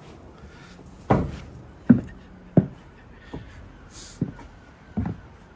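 Hammer blows on timber: about seven sharp knocks, roughly one every three-quarters of a second, starting about a second in, the first three the loudest, as new roof rafters are fixed.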